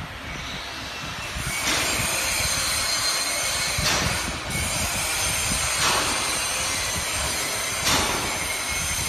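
Double-strand barbed wire machine running, twisting the line wires and winding the finished barbed wire onto its take-up reel: steady metallic machine noise with a sharper stroke about every two seconds.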